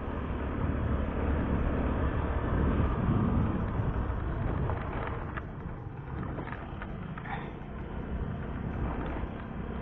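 Motor scooter being ridden: a steady low rumble of its engine and the wind, easing off after about five seconds.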